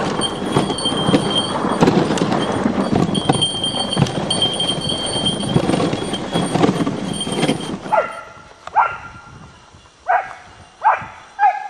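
Dog-sled runners scraping and rattling over hard, icy snow, a dense noise that dies away about eight seconds in as the sled stops. Sled dogs then bark and yip about five times in short, sharp calls.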